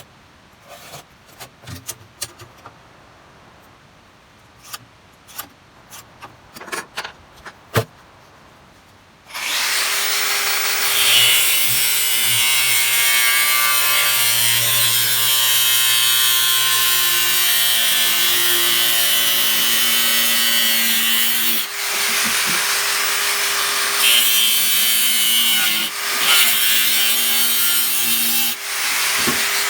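A few light knocks and clicks of handling, then about nine seconds in a power tool starts and runs steadily and loudly, dipping briefly twice as it works.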